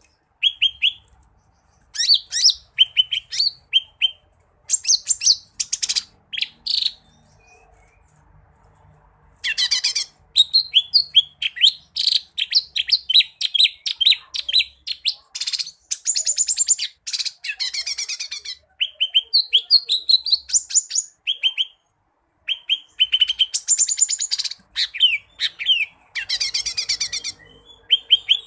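A cucak ijo mini (green leafbird) singing a loud, fast, varied song full of mimicked phrases, in bursts of rapidly repeated high notes and trills. The song breaks off for a couple of seconds about a quarter of the way in and again briefly near the three-quarter mark.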